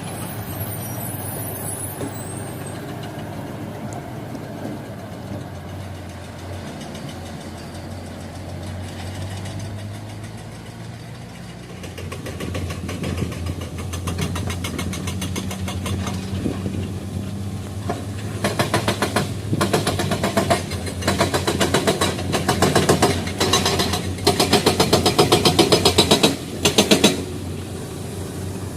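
Heavy machinery's diesel engine running steadily, picking up about twelve seconds in, then turning to a loud, rapid clatter from about eighteen seconds on, with a short dip near the end.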